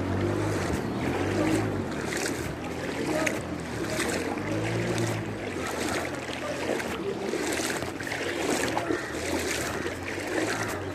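Floodwater sloshing and splashing as something moves through it, a continuous wash of water noise with a low hum that comes in near the start and again about four seconds in.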